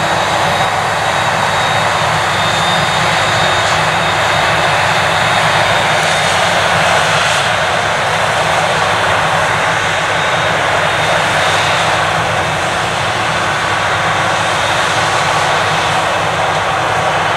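Claas Jaguar 980 forage harvester chopping maize under load: a loud, steady engine and machine rush, with a faint high whine above it. A tractor pulling the trailer alongside runs beside it.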